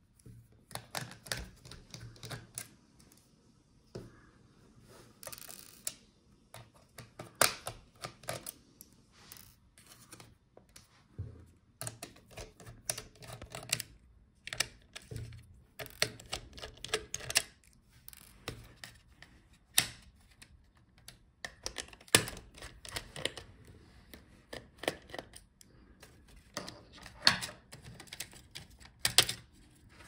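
Irregular clicks and taps of a small screwdriver backing screws out of a Dell Latitude 5440 laptop's plastic inner shield, with the plastic parts clacking as they are handled and lifted out.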